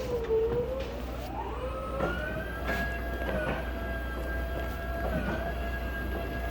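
A siren winding up: its pitch wavers, climbs over about two seconds, then holds a steady high tone. A few light knocks sound around the middle.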